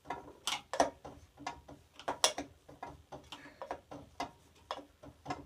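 Quick, uneven metallic clicking, about four clicks a second, from a tool working the rusted arbor nut off a table saw blade.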